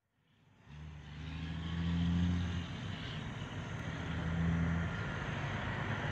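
A low, steady mechanical rumble fades in and swells twice, about two seconds in and again about four and a half seconds in, like passing traffic.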